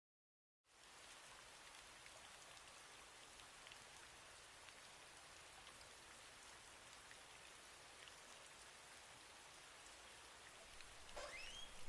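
Soft, steady rain hiss with faint scattered drops, fading in about a second in. A brief rising squeak comes near the end.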